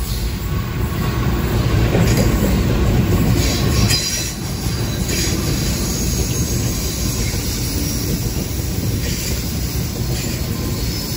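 Pacific National NR class GE diesel-electric locomotives passing close by, engines loudest about two to four seconds in, followed by steady rumble and wheel clatter as the rest of the lead units and the first container wagons roll past, with some high-pitched wheel squeal.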